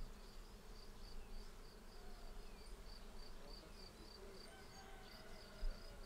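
Faint outdoor ambience of a cricket chirping in short, evenly spaced pulses, about three a second, over a low rumble. A soft low thump comes near the end.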